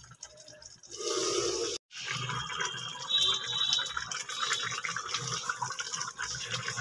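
Water poured into a hot kadhai of frying chicken liver with a short rush. After a cut, the liquid sizzles and bubbles hard with a dense crackle, with a brief high whistle among it.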